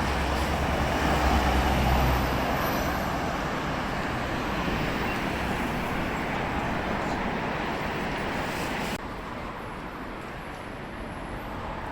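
City street traffic: a motor vehicle passes close by with a low engine rumble over the first couple of seconds, then steady road noise follows, which drops suddenly about nine seconds in.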